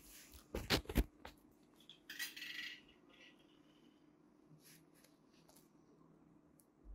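Several sharp metallic clicks and taps of a small dental driver and instruments against the implant crown and screw, the loudest close together about a second in, followed by a short rustle and a few faint ticks.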